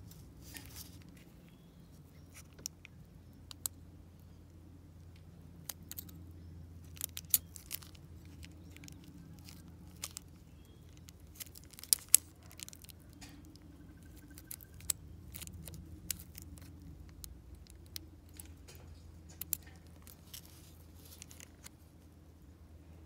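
Quiet handling of a brass dimple-lock cylinder in a thin plastic bag: the bag crinkles now and then, and a steel tool in the lock's keyway gives scattered sharp metallic clicks and ticks, the loudest two close together about twelve seconds in.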